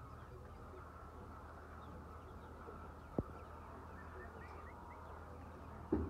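Flock of white laying hens in a poultry shed, a steady murmur of calls with a few short chirps, and a single sharp click about halfway through.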